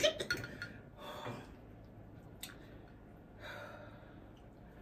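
A person breathing out and in with a few soft, breathy sighs while eating spicy noodles, with a few light clicks near the start.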